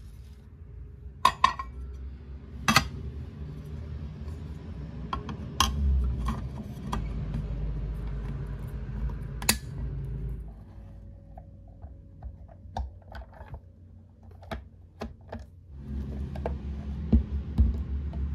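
Sharp clicks and clacks of a waffle maker's removable waffle plate being fitted into its frame and the appliance being handled, scattered irregularly and coming more often in the second half, over a low rumble.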